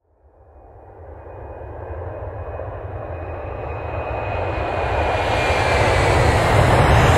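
Jet aircraft engine noise fading in from silence and growing steadily louder, a deep rumble and hiss with a faint high whine that slowly falls in pitch, like an approaching jet.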